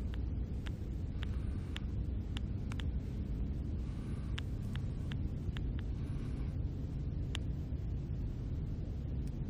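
Steady low rumble of outdoor background noise with faint, sharp clicks scattered through it, about one or two a second.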